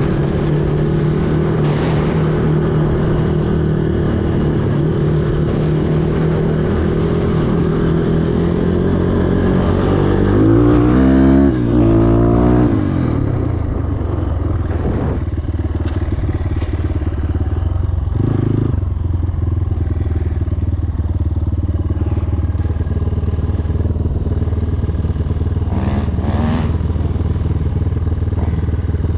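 250 cc enduro motorcycle engine running on a ride, revving up and back down about a third of the way in, the loudest part, then settling to a steady lower running with a couple of short blips of throttle.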